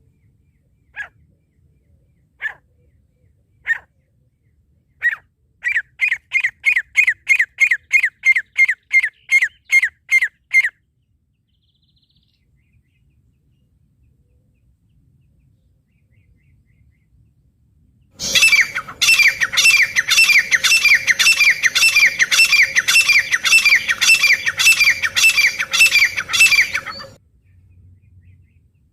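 Francolin (teetar) calls: a few single sharp notes about a second apart, then a fast run of about three calls a second. After a pause of several seconds, a second, louder and harsher run of calls lasts about nine seconds over a steady hum.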